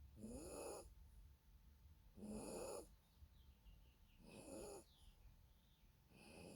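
A Yorkshire terrier snoring in its sleep: four short, pitched snores about two seconds apart, each with a wavering pitch.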